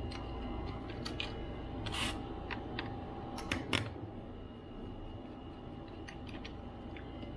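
Scattered small clicks and taps of a T6 Torx screwdriver and tiny parts being handled during laptop disassembly, busiest in the middle with two sharper taps, over a steady faint hum.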